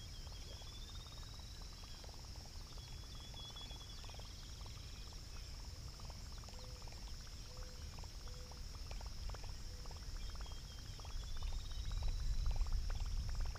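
Insects, crickets among them, buzzing steadily and faintly, with a few bird chirps near the start and again near the end, and a low rumble growing in the last few seconds.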